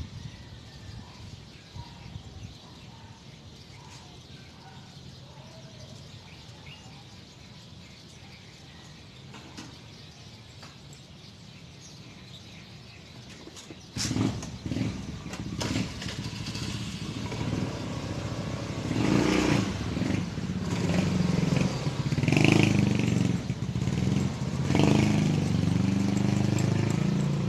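Quiet street with faint bird chirps at first. About halfway through, a motorcycle engine starts with a sudden burst and keeps running, getting louder toward the end.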